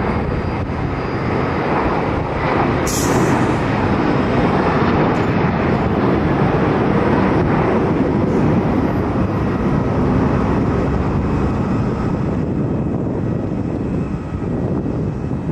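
Jet airliner engines at high power, a loud, steady rush of noise that does not let up.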